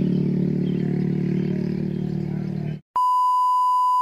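A steady low droning hum cuts off abruptly about three seconds in. After a brief gap, a pure electronic beep tone, edited in, holds steady for about a second.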